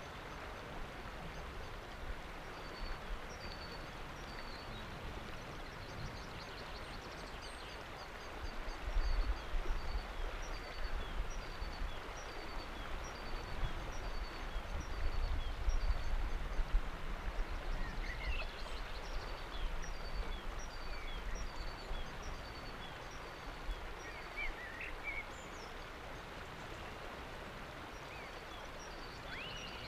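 River water rushing steadily past a rock shelf, with a small bird repeating a short high note at an even pace and giving a few other chirps. In the middle stretch a low, gusty rumble of wind on the microphone rises over the water, then fades.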